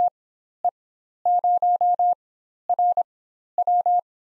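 Morse code sent as a single steady beep tone, keying out the amateur radio callsign 2E0RWW: the end of the 2, then E, 0, R and W fall within these seconds.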